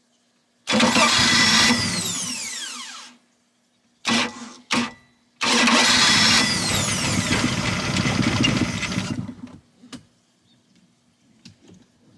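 New starter cranking a 4.3 OMC V6 sterndrive engine in two long attempts, with two short blips between them. The engine turns over without catching, which the owner takes as a sign that it needs a fuel-system cleaner. The cranking runs down on a weakly charged battery.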